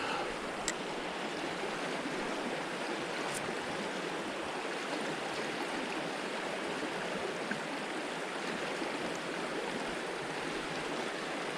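Mountain trout stream flowing: a steady, even rush of moving water, with a couple of faint small clicks early on.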